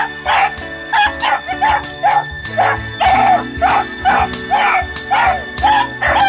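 Music with a steady beat, with beagle puppies barking over it: short, high, repeated barks, about two a second.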